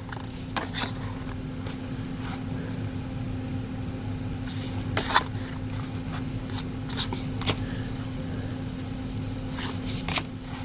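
Trading cards from a freshly opened wax pack being handled and slid off the stack by hand: brief, scattered rustles and scrapes of card stock, a few seconds apart, over a steady low hum.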